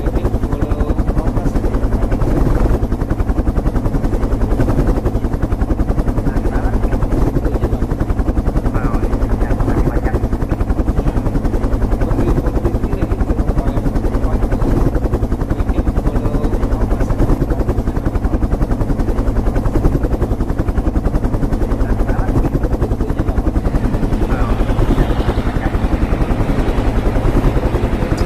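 Helicopter running close by: the rotor blades beat in a fast, even chop, loud and steady throughout.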